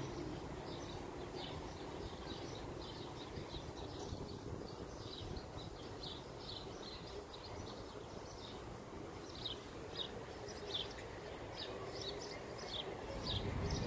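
Small birds chirping faintly, short high chirps repeating about twice a second over a steady low outdoor background hum.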